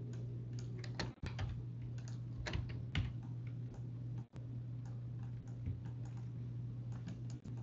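Irregular clicks of computer keys and a mouse, a few scattered strokes rather than steady typing, over a steady low hum.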